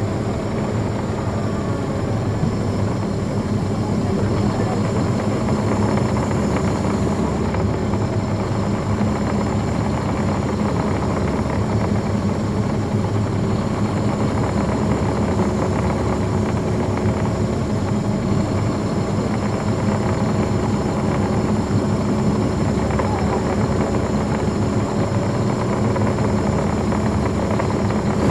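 The Caterpillar C13 ACERT diesel engine of a 2009 NABI 40-SFW transit bus running steadily, heard from on board with its engine cooling fans switched off; a steady low drone that grows slightly louder in the first few seconds.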